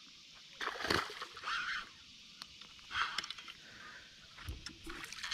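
A few short splashes of water: a hooked bass thrashing at the surface as it is reeled in to the boat.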